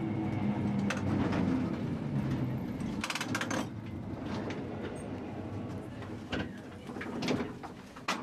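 Vintage tram running with a low electric hum that fades out about three seconds in, followed by a quick run of clicks and scattered knocks from the car's body and fittings as it rolls slower.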